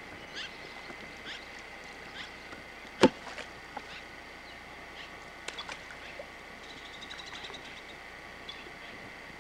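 Outdoor ambience with a bird or other animal calling repeatedly in short downward-sliding notes, about one a second, that thin out later. A single sharp knock about three seconds in is the loudest sound, and a brief quick ticking trill comes near the end.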